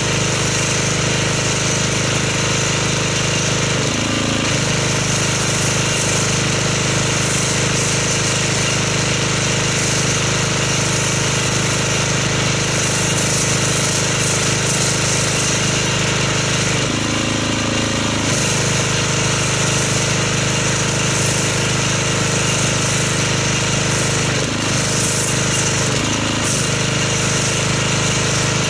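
Pressure washer running steadily while spraying foam through an MTM foam cannon: a steady buzzing hum from the pump and motor under the hiss of the spray, the hum briefly changing a few times.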